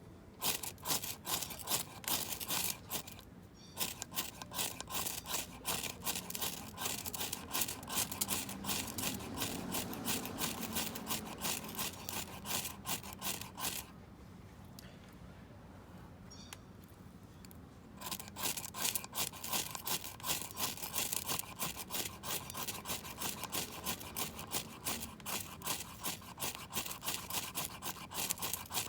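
Wood being sawn by hand with rapid back-and-forth strokes. The sawing stops for about four seconds around halfway, then starts again.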